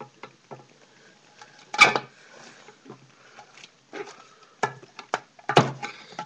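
Paint cans and painting supplies being handled: a string of light clicks and knocks, with two louder knocks about two and five and a half seconds in.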